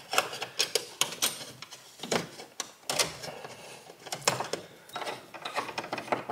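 Irregular clicks and scrapes of wiring being handled inside a steel breaker panel, as a bare copper ground wire and cables are pushed and rubbed against the metal box and cable clamp.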